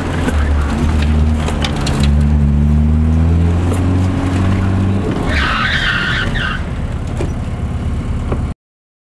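A car engine running hard, its pitch rising slowly, with tires squealing for about a second just past the middle. The sound cuts off abruptly to silence near the end.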